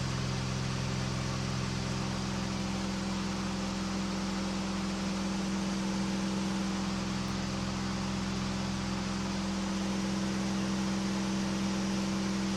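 KR2 homebuilt airplane's engine and propeller droning steadily in cruise flight, heard from inside the cockpit with a rushing airflow hiss, and a lower tone that fades in and out twice.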